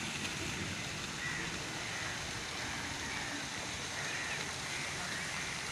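Steady outdoor background noise, with faint high chirps here and there.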